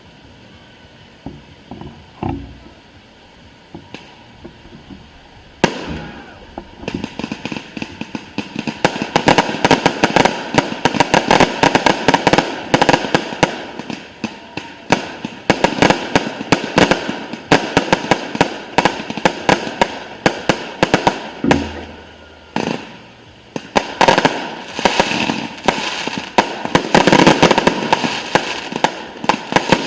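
Fireworks display: a few scattered pops at first, then about six seconds in a dense, rapid run of bangs and crackling that eases briefly near the two-thirds mark and picks up again.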